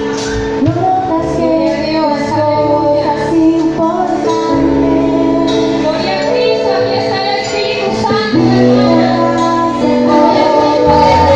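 Music with voices singing a melody over held instrumental chords.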